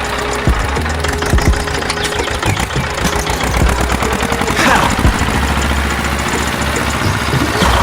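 Engine idling with a steady low hum, broken by several sharp knocks and a brief falling whine about two-thirds of the way through.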